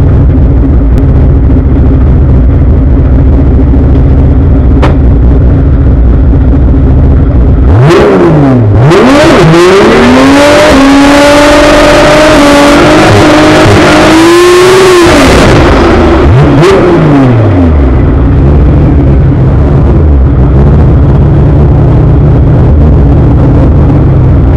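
Drag race car engine heard from inside the cockpit, idling with a heavy, loud rumble. About eight seconds in it is revved hard and held at high revs for several seconds under a loud hiss, then drops back to its rumbling idle.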